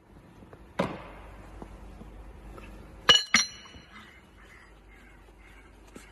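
Steel parts of an eccentric casing drill bit knocking together as they are fitted and handled. There is a dull knock about a second in, then two sharp ringing metal clinks a quarter of a second apart about halfway through, and a faint knock near the end.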